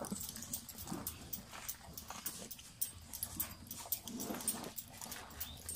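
Brahman cow munching chopped banana trunk from a plastic feed tub: a stream of crisp, wet crunching clicks as it chews.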